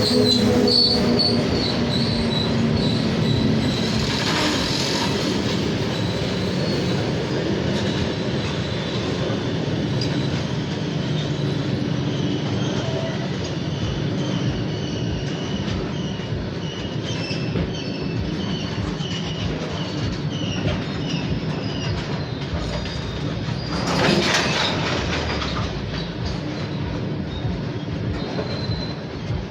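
Long freight train's wagons rolling past on a curve: a steady rumble with clickety-clack of wheels over rail joints and an on-and-off high-pitched squeal of wheel flanges grinding on the curved rail. A short louder rush of noise comes late on.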